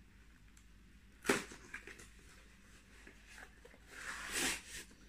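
Cardboard gift packaging being handled while a dish is unpacked: a sharp knock about a second in, a few light clicks, then a short rustle of the box near the end.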